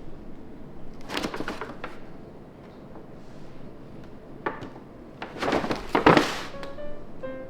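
Paper bag rustling and crinkling in two bursts as cats scramble in and against it, with a sharp tap between them. Plucked-string music notes start near the end.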